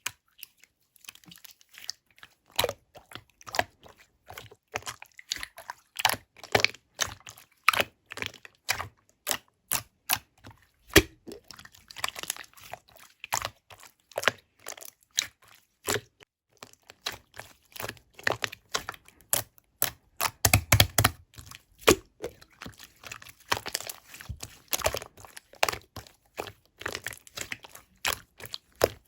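Slime being squished, pressed and stretched by hand, making a dense run of small sticky clicks and crackles.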